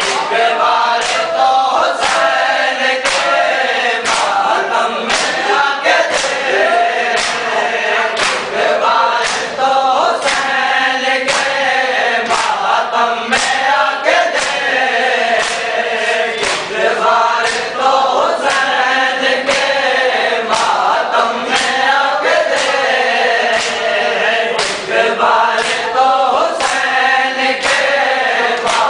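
A crowd of men chanting a noha in unison, kept in time by sharp hand slaps on bare chests (matam) about once a second.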